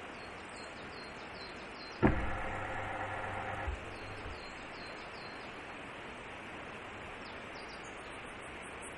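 A remote webcam's pan-tilt motor starts with a loud click about two seconds in, runs with a steady electric whir for about a second and a half, and stops with a knock as the camera re-aims. A steady hiss lies underneath.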